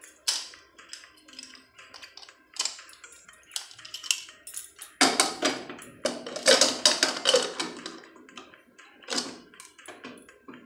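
Metal lid of a Hawkins inner-lid pressure cooker being fitted into the pot and locked: irregular clinks, knocks and scrapes of metal on metal, busiest and loudest from about five to eight seconds in.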